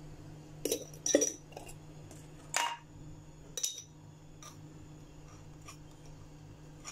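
Stainless steel spoon clinking against a ceramic bowl of chicken, four sharp clinks in the first four seconds, then a few fainter taps.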